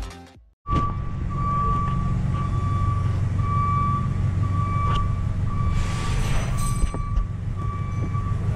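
Music fades out, then a heavy vehicle's engine runs steadily while its reversing alarm beeps a single high tone about every half second.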